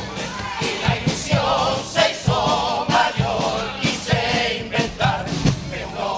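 Carnival murga chorus of men singing a pasodoble together, with guitars and a steady beat underneath.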